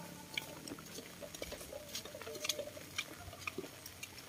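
Footsteps on a concrete road, about two steps a second, with faint calls in the background.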